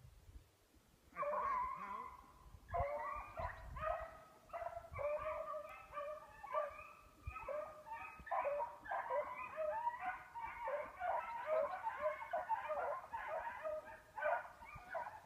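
A pack of five beagles in full cry running a hare, several hound voices baying and overlapping. The chorus starts about a second in, pauses briefly, then carries on steadily.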